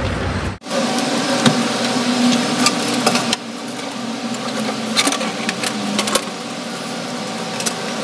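A steady mechanical hum with scattered light knocks and clatters, as of plastic buckets and other things being handled close by. There is a brief abrupt break about half a second in.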